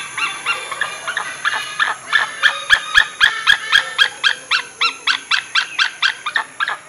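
White-bellied sea eagle calling: a fast, even series of short notes, about four a second, getting louder about two seconds in.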